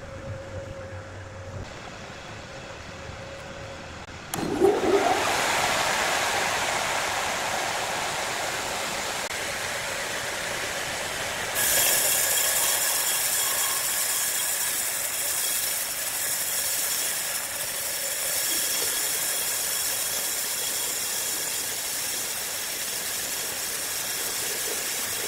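Large horizontal bandsaw mill cutting lengthwise through a giant hardwood log: a steady hissing rush of the blade in the wood. It starts suddenly after a quieter low machine hum about four seconds in, and turns louder and brighter about halfway.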